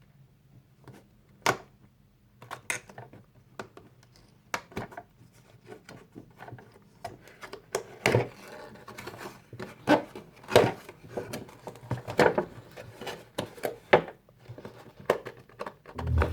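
A diecast model car's box and packaging being handled and opened: scattered clicks, taps and rustles, sparse at first and busier from about halfway through.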